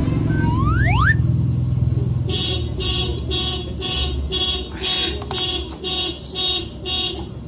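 Electronic alarm beeping in a quick repeating pattern, about two to three beeps a second, after two short rising whistle-like glides near the start.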